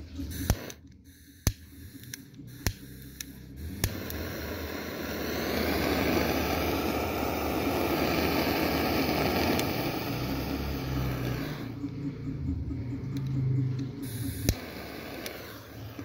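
Zippo lighter clicking sharply four times about a second apart, then a long hiss that swells and fades over several seconds, and one more click near the end.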